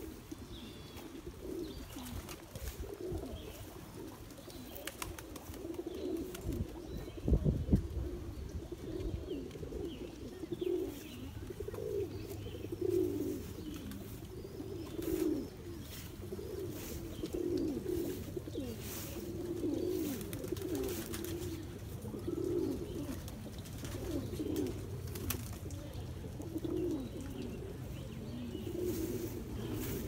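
Many pigeons cooing over one another, low calls repeating all the way through. A single loud low thump about seven seconds in.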